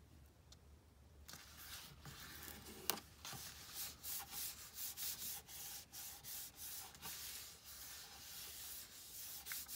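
Hands rubbing and smoothing freshly glued paper down onto a journal page: repeated dry, hissy rubbing strokes that start about a second in, with one sharp tap near three seconds.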